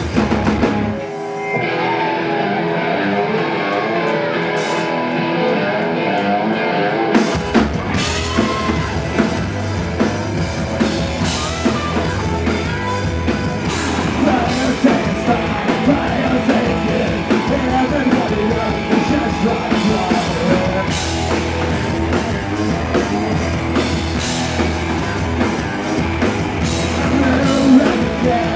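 Live rock band playing loud, with electric guitars and a male lead vocalist singing. For about six seconds near the start the bass and drums drop out, leaving guitar and voice. Then the full band with drums and bass comes back in on a hit about seven seconds in.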